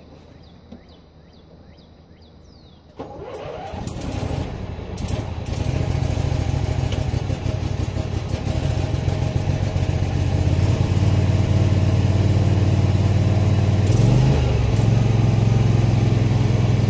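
Grasshopper Model 612 mower's engine cranking and catching about three seconds in, then running steadily, with a brief dip and rise in pitch near the end.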